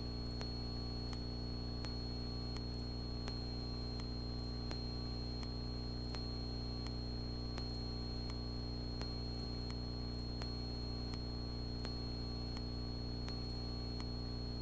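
Steady low hum and hiss of a single-engine light aircraft's cockpit, heard through the intercom audio feed, with a faint steady high whine and soft regular ticks a little more than once a second.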